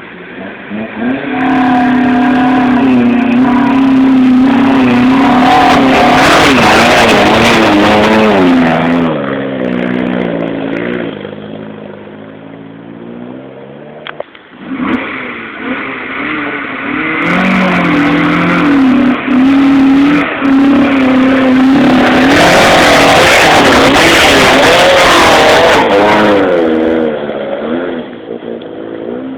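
Trials car engine working hard under heavy throttle, its revs held high and then rising and falling unevenly, as a car drives up a classic trials hill section. This happens twice, with each engine fading away in falling pitch before the next one starts.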